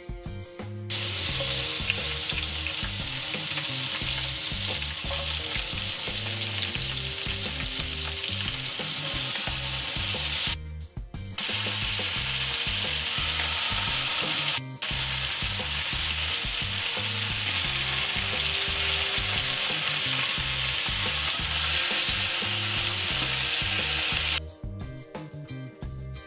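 Chopped ginger, then chopped tomatoes and red capsicum, sizzling in hot oil in a nonstick frying pan: a loud, steady sizzle that starts about a second in. It drops out briefly twice partway through and stops a couple of seconds before the end.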